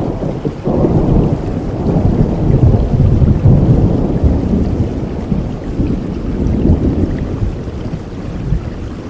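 Rolling thunder over steady rain. The low rumble swells sharply about a second in, peaks a few seconds later, then slowly dies away.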